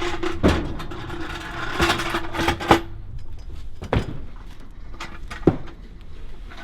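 A series of knocks and thumps as cardboard cartons are handled and set down during unloading, over a steady hum that stops about three seconds in.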